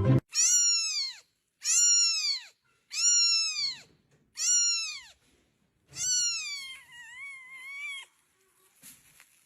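A cat meowing five times in a row. Each meow rises and falls in pitch, and the last one is longer and wavering.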